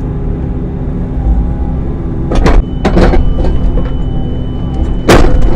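Midsize excavator's engine running steadily while it digs, with three loud scraping clanks, about two and a half, three and five seconds in, as the bucket works the ground.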